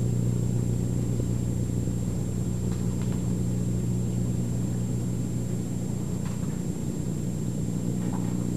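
Steady low hum of room or machine noise, with a faint high-pitched whine above it.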